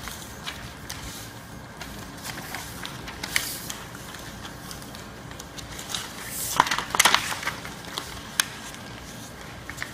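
Sheets of paper being folded, creased and slid across a table by several people at once: a run of rustles and crisp crinkles, busiest about six to seven seconds in.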